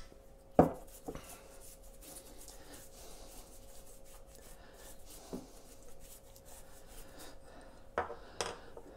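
Pastry brush spreading oil over the skin of whole flatfish in a glass baking dish: faint, repeated soft brushing strokes. There is a sharp knock about half a second in and two lighter knocks near the end.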